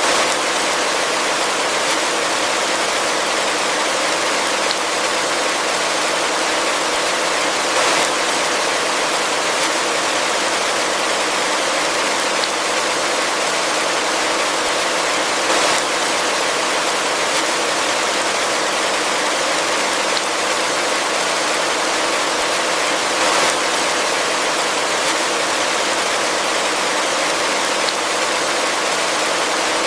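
Heavy rain falling steadily in a dense, even hiss, with a brief slight swell about every eight seconds.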